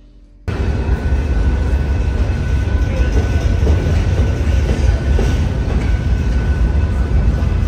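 Freight train of covered hopper cars and boxcars rolling past, a loud, steady rumble of steel wheels on the rails that starts abruptly about half a second in.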